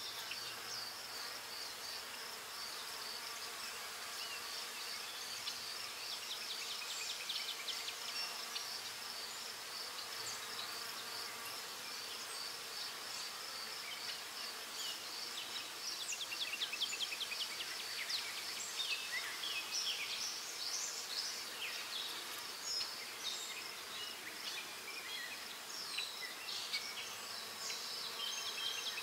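Graphite pencil scratching on paper in short, quick strokes, in clustered runs, over a steady high-pitched, finely pulsing whine.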